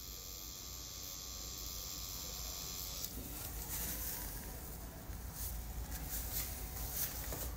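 Tattoo machine running steadily, faint under a hiss, for about three seconds. Then soft irregular rubbing and dabbing as a paper towel wipes the freshly tattooed skin.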